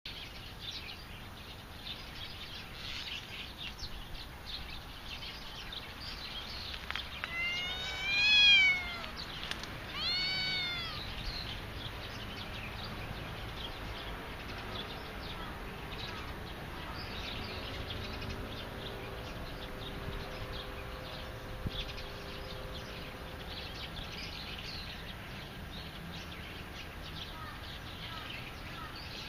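Stray cat meowing twice: a loud, high meow that rises and falls in pitch, then a shorter one about two seconds later.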